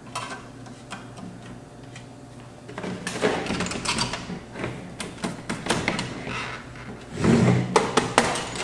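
Handling noise inside an AV receiver's chassis as a part is worked loose: scraping, rattling and sharp clicks and knocks of metal and plastic. It is sparse at first and busier from about three seconds in, loudest near the end, over a low steady hum.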